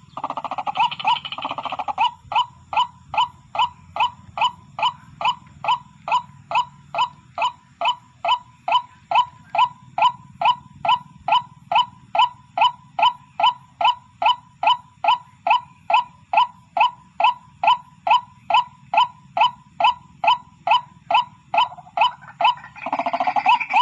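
White-breasted waterhen (ruwak-ruwak) calling: a long, even run of short, identical notes, about two a second. A harsher, noisier sound lies over the notes for the first two seconds and again near the end.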